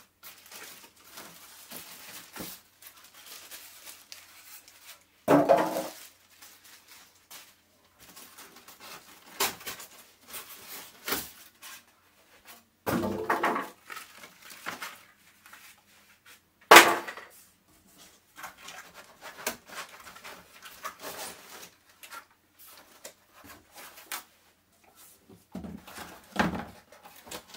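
Plastic wrapping crinkling and cardboard packing being handled and lifted out of a printer box, in irregular rustling bursts with several louder crinkles. A sharp knock a little past halfway is the loudest sound.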